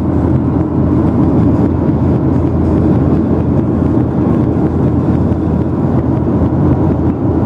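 Airliner cabin noise at cruise altitude: a loud, steady rush of engines and airflow, heaviest in the low range.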